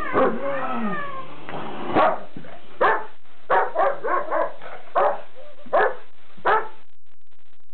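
Two dogs, a Weimaraner and a Rhodesian ridgeback puppy, play-fighting: drawn-out wavering play growls first, then a run of about nine sharp barks over the next few seconds, stopping near the end.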